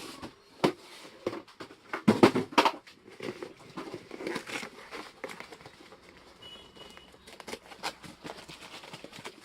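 Packaging being handled while ceiling fan blades are unpacked: irregular crinkling and rustling with scattered clicks and knocks, loudest about two seconds in.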